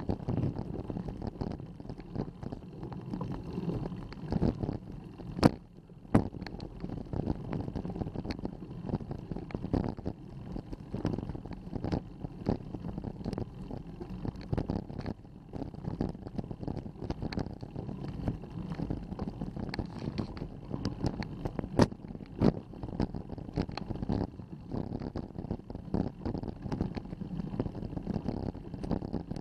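Bicycle climbing slowly up a steep paved road, heard through an action camera mounted on the bike: a steady low rumble of road vibration with frequent small knocks and rattles and a few sharper clicks.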